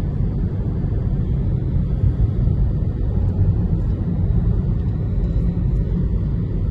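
A car driving on the highway: a steady low rumble of engine and tyre noise.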